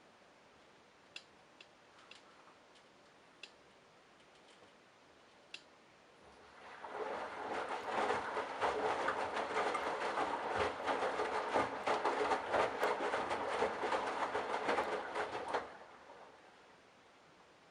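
Candy Bianca washing machine mid-cycle: after a few light clicks, the drum motor starts turning the load about six seconds in, runs as a dense rattling rumble for about nine seconds, and stops.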